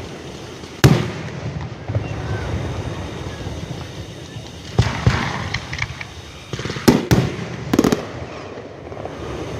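Aerial fireworks going off: a sharp bang about a second in, then more bursts near five and seven seconds, some in quick crackling clusters, with a low rumble carrying on between them.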